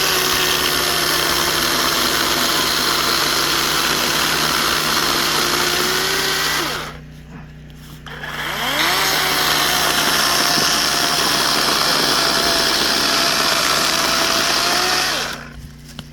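DeWalt 20V brushless 12-inch cordless chainsaw (DCCS620B) running at full speed and cutting through wood in two runs: its electric motor whirs steadily for about six seconds and winds down, then after a short pause spins up again for about seven seconds and winds down near the end.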